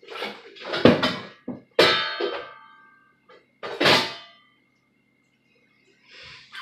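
Kitchenware being moved and set down while organizing a cupboard: a run of knocks and clangs, one about two seconds in ringing briefly and another sharp clang about four seconds in.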